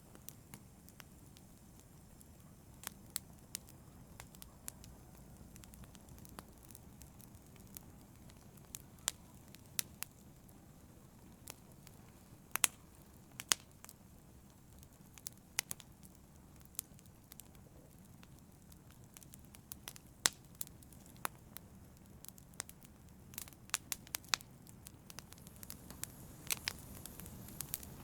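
Wood fire in a fireplace crackling: irregular sharp pops and snaps over a soft, steady low rumble from the flames, with the pops coming more often near the end.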